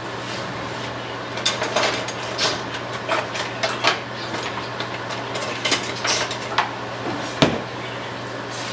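Irregular clatter and knocks of cookware and utensils being handled on the stovetop, the sharpest knock about seven seconds in, over a steady low hum.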